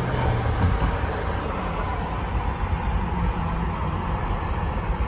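Steady road and engine noise inside a moving car's cabin, with a low hum.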